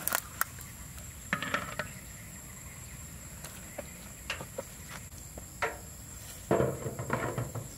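Short metal knocks and clatters as a steel tray is set into a large wok over steaming water and a big metal lid is put on. The loudest clatter comes near the end as the lid settles. A steady high insect hum runs behind.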